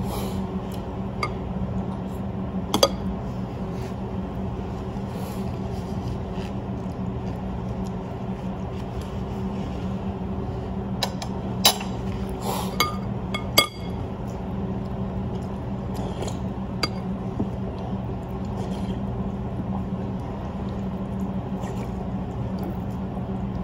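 Dishes and cutlery clinking now and then over a steady low hum, with the sharpest clinks a few seconds in and a cluster around the middle.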